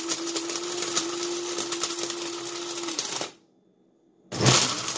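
Electric blade spice grinder running loud with a steady motor whine, grinding whole dry spices into powder. It stops about three seconds in, then starts again about a second later, its pitch rising as it spins up.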